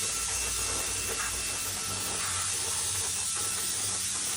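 Keelat handheld mini turbo blower fan running at high speed: a steady, loud rush of air with a faint high whine.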